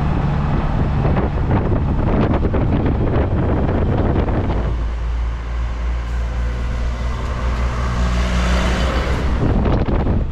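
Auto-rickshaw (tuk tuk) engine running as it drives along, heard from inside the open cab, with road noise. About halfway through the sound settles into a steadier low hum.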